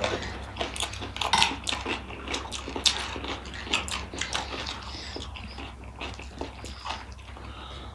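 Metal spoons clinking and scraping on ceramic plates while two people eat wet, spicy gilo chatpate, with chewing mixed in: many short, irregular clicks.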